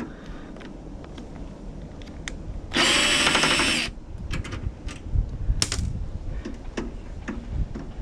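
A power drill/driver runs in one burst of about a second, about three seconds in, backing a screw out while a microwave oven is being dismantled. Light clicks and knocks of handling sound before and after it.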